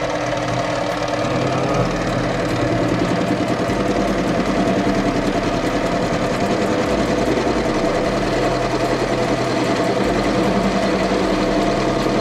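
Small benchtop metal lathe running steadily, turning a metal exhaust tube held in its chuck as the cutter is fed in by hand. The motor and gear drive give a steady hum of several tones.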